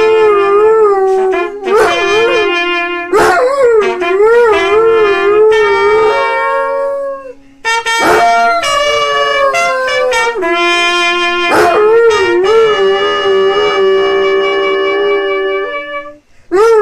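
A dog howling along with a trumpet. The trumpet holds steady notes while the dog's wavering howl slides above and around them, with a brief break about halfway through.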